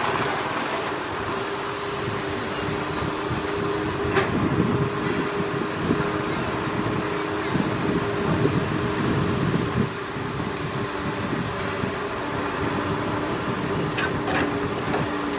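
Komatsu PC200 hydraulic excavator's diesel engine running steadily with a constant hum while the machine digs soil and debris, with a couple of short clicks. A passing motorbike fades away in the first second.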